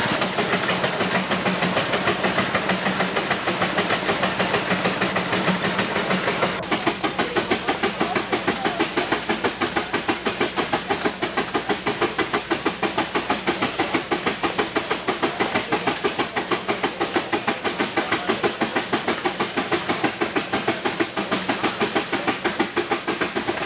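Advance steam traction engine running under load on a prony-brake dynamometer, its exhaust chuffing in a fast, even beat with steam hiss. About six and a half seconds in, the beat grows sharper and more distinct.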